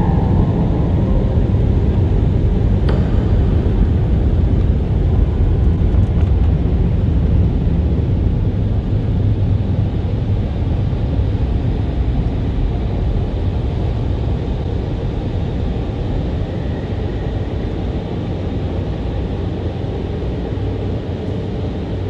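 Automatic car wash machinery running, heard from inside the car's cabin as a steady, heavy rushing noise that slowly fades.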